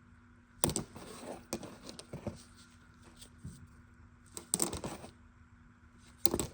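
Short scraping and rustling handling noises in several separate bursts, over a faint steady hum.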